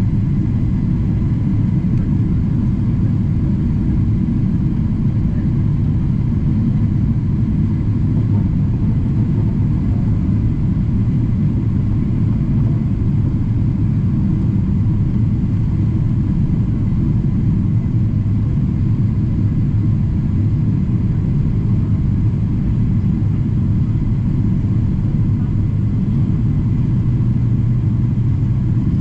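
Jet airliner cabin noise in flight: a loud, steady low rumble of the engines and rushing air, heard from a window seat inside the cabin, with a faint steady hum above it.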